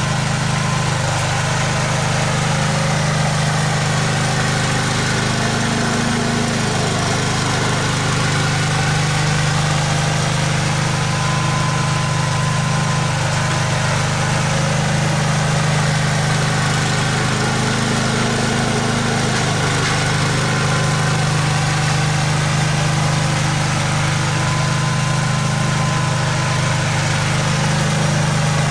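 Engine of a snow-removal machine running steadily, with a slight change in pitch twice as the load shifts.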